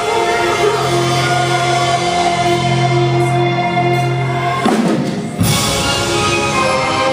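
Loud live concert music with singing and drums, held notes over a bass line. About five seconds in the bass drops out briefly under a rising swish, then the music comes back fuller.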